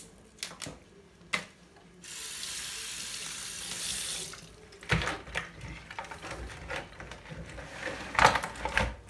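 Kitchen mixer tap running steadily into a stainless-steel sink for about two seconds, then shut off. Scattered knocks and clatter of crabs being handled in the sink come before and after it, and the loudest knock comes near the end.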